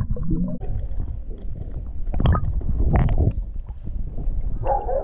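Muffled underwater rumble and water sloshing against a submerged action camera, with two louder rushing surges about two and three seconds in.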